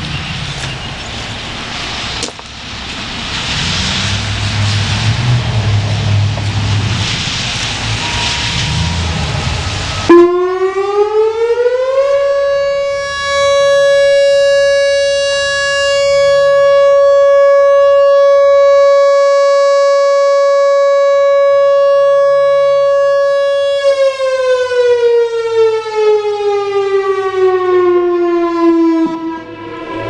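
Whelen WPS-4004 rotating electronic warning siren sounding its short alert. After about ten seconds of steady rushing background noise, the tone rises over about two seconds to a steady C#/D♭ near 560 Hz and holds for about twelve seconds. It then winds down over about five seconds and cuts off shortly before the end.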